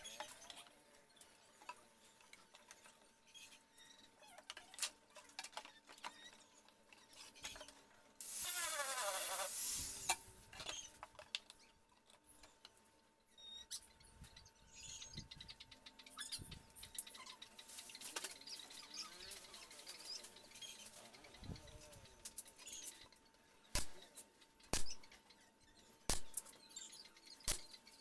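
Plywood panels of a speaker box being handled and fitted, with scattered light knocks and clicks. About eight seconds in there is a loud hissing rush lasting almost two seconds, and near the end four sharp knocks.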